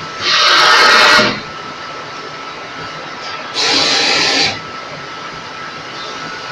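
Rotary pulp-moulding egg tray machine running with a steady hum and a faint whine. Twice, about three seconds apart, it gives a loud hiss of air about a second long that starts and stops sharply, in time with the machine's cycle.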